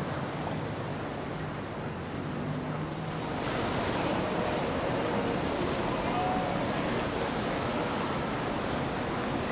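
Steady rush of water with wind on the microphone and a low hum underneath; the rush grows louder about three and a half seconds in.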